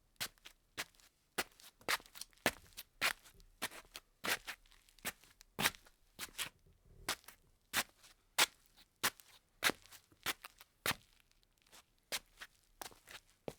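Slippers shuffling on a tile floor: a run of short, uneven scuffing steps, about two a second.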